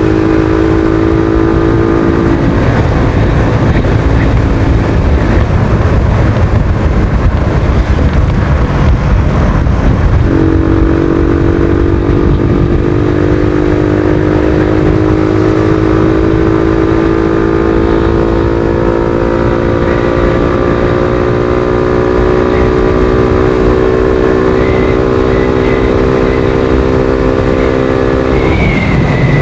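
Suzuki Thunder 125's single-cylinder four-stroke engine running while riding, under heavy wind rush on the microphone. The engine tone drops away about 2.5 s in, comes back about 10 s in and rises slowly, then breaks off near the end.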